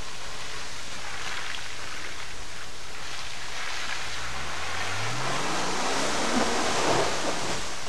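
A vehicle driving along a wet, muddy trail: a steady rushing noise of tyres through water and mud, with the engine revving up from about halfway through, rising in pitch for a few seconds.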